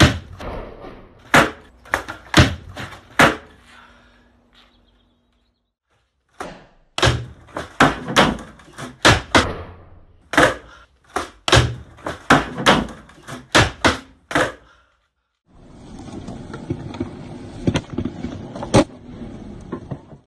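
Skateboard flip tricks in a room: repeated sharp clacks of the tail popping and the board and wheels landing and hitting the floor, in two quick runs. Near the end the skateboard rolls on concrete, a steady rush of wheels with a single loud clack.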